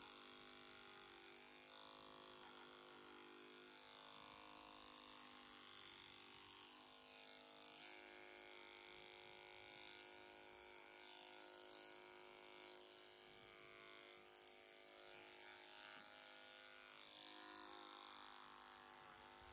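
Electric horse clipper running quietly and steadily as its blade cuts through the short hair on a horse's jaw.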